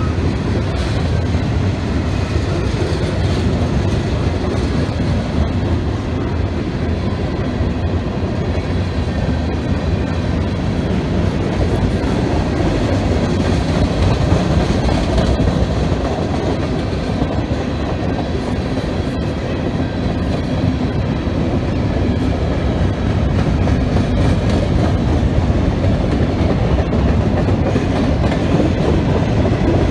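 Freight train of covered hopper and tank cars rolling past close by: a steady, low rolling noise of steel wheels on the rails with a clickety-clack of wheels crossing rail joints.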